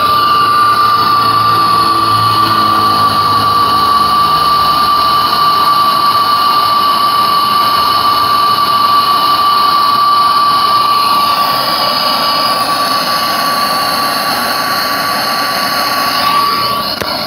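Brazing torch flame hissing steadily as a copper joint on a refrigerator's filter drier is brazed, with a steady high whine over the hiss. It cuts off near the end.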